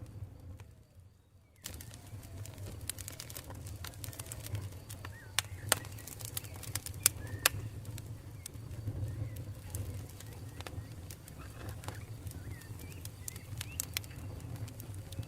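Campfire burning with sharp crackles and pops over a steady low rumble, three louder pops between about five and seven and a half seconds in. The crackling briefly drops out for about a second near the start.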